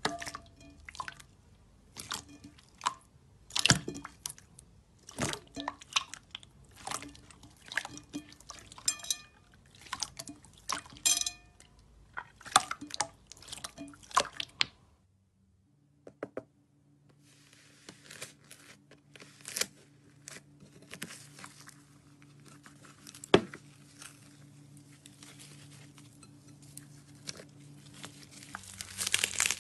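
Hands squeezing and kneading clear jelly slime: wet squelches with many sharp clicks and pops, several a second. After a brief silent break about halfway, a different, blue slime is pressed with fainter crackling over a low steady hum, and one loud sharp click.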